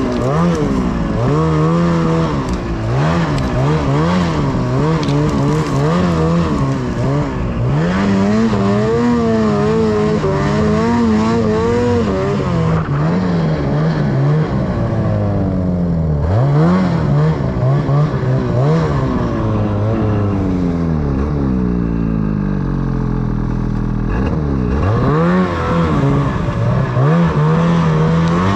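Ski-Doo Freeride 850 snowmobile's two-stroke twin engine being ridden hard, its revs rising and falling every second or two with a few sharp drops and climbs.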